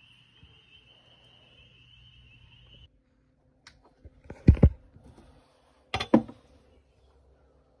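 A steady high insect trill that cuts off about three seconds in, then two clusters of sharp knocks about a second and a half apart as a rusty steel machete is set down and handled on a rubber work mat.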